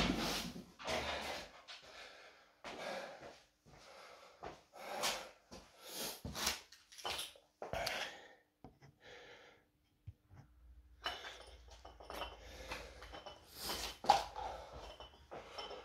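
A man breathing hard, in ragged, noisy gasps every half second to a second, recovering from a heavy set of barbell box squats. The breaths ease and space out, with a short pause about ten seconds in before they resume.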